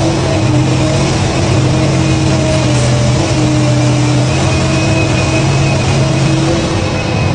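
Cat excavator's diesel engine running steadily under load as the bucket digs into and lifts soil.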